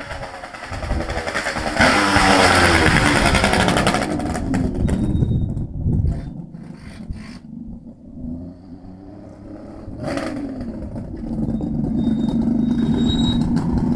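Suzuki GT380 two-stroke triple with steel silencers being revved by hand. The throttle is blipped up sharply about two seconds in and held briefly, blipped again twice, then held at steady raised revs near the end.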